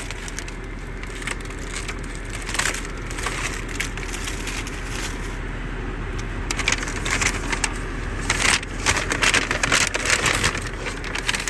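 Paper takeout bag and paper wrapper rustling and crinkling as the food is unpacked, with a plastic container handled. The crackling grows denser about six and a half seconds in, over a steady low hum.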